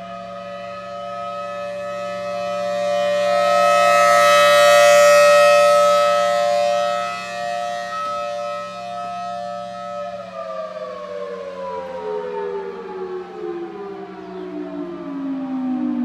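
Federal Signal Thunderbolt 1000T outdoor warning siren sounding a steady tone from its rotating horn. It grows louder a few seconds in as the horn swings toward the listener, then fades as it turns away. About ten seconds in, the pitch begins falling steadily as the siren winds down.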